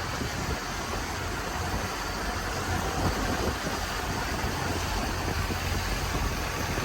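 Motorboat engine running steadily, with rushing wind and water noise over it.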